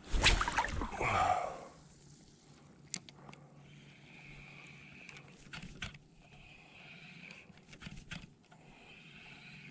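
A loud burst of splashing, rushing water noise lasting about a second and a half. Then a spinning reel is cranked in short spells, its gears whirring faintly with small clicks.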